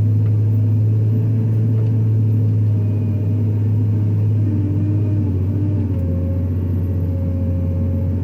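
JCB 426ZX wheel loader's diesel engine running with a steady, deep drone as the loader begins cutting into gravel.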